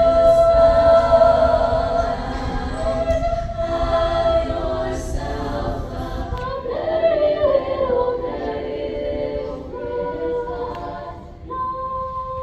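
Unaccompanied group of voices singing long held notes that move from pitch to pitch.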